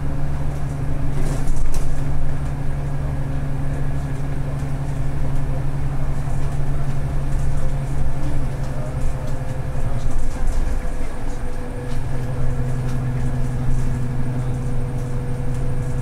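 Bus heard from inside the cabin while driving: a steady drivetrain hum with a held pitched tone over road noise, with a few light rattles. The hum eases for a moment about ten seconds in, then returns a little lower in pitch.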